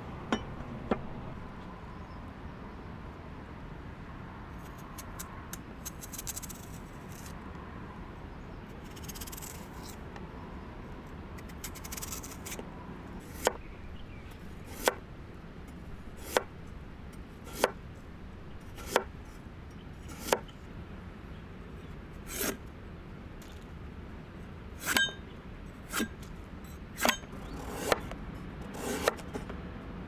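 A large curved kitchen knife slicing raw vegetables, potato and zucchini, on a wooden cutting board. Each cut ends in a sharp knock of the blade on the board, a couple near the start and then a steady run of about one every second and a half through the second half, with softer scraping and rustling between.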